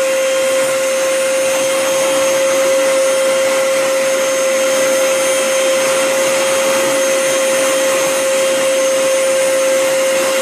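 Vacuum cleaner motor running steadily: an even rushing hiss with a strong unchanging whine.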